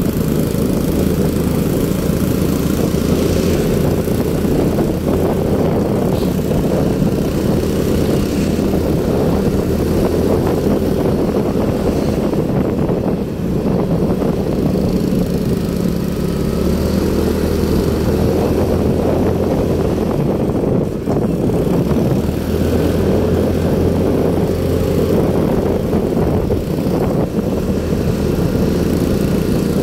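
Motorcycle engine running steadily while riding, heard from the rider's own bike, with wind and road noise over it.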